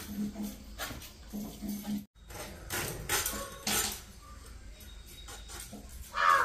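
Heavy kitchen knife chopping raw jackfruit on a stone floor: a run of sharp knocks and clinks. Right at the end a loud animal call begins.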